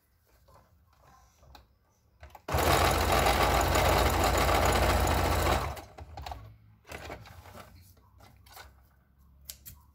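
Electric sewing machine stitching a short strip of bias tape in one run of about three seconds, starting a couple of seconds in and stopping abruptly. Faint handling clicks come before and after.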